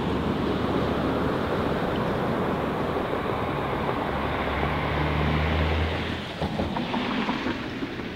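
Steady outdoor street noise, a rushing haze of wind and distant traffic. A low steady hum joins about four and a half seconds in and stops about six seconds in, after which the noise is quieter.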